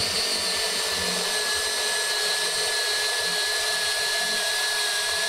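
Makita cordless drill running at a steady speed with a constant whine, boring a 3/8-inch hole through 2x4 lumber with a dull bit.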